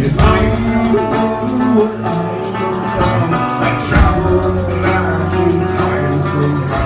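Live rock band playing loudly, with a drum kit and cymbals struck in a steady rhythm under electric guitar and a singer on a microphone.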